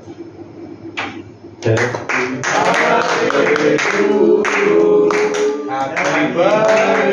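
A small group of men start singing a birthday song together about a second and a half in, clapping their hands along with it.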